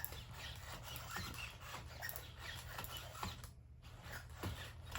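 Sony aibo robot dog's leg joints and motors squeaking and clicking as it moves, with scattered short high squeaks; the squeak persists even after its hip repair.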